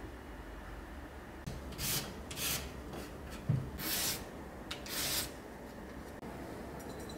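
A raw carrot being julienned into thin strips with a shredding blade, over a wooden cutting board: several short scraping strokes about a second apart, the last two loudest.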